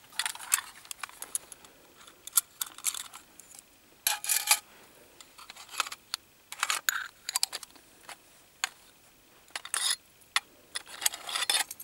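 Small aluminium canisters and parts of a Sportpresso espresso kit clicking and clinking as they are lifted out of their aluminium box and set down, in scattered light knocks with quiet between.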